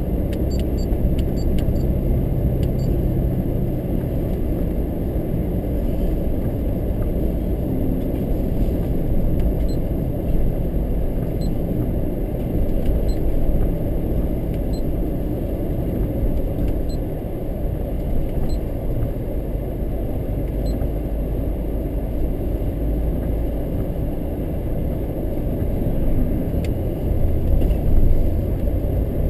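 A car driving, a steady low rumble of engine and road noise with no clear change in speed.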